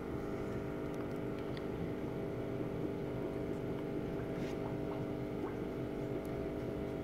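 Steady low machine hum, made of several even tones, with a few faint clicks.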